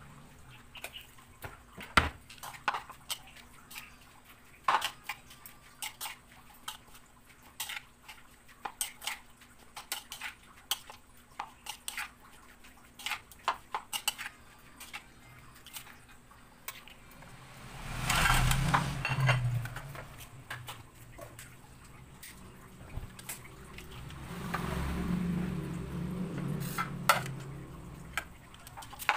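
Scattered clinks, taps and scrapes of a spoon and hands against a ceramic bowl and plates as chopped vegetables are mixed. Two stretches of louder low rumble, one about two-thirds of the way through and another near the end.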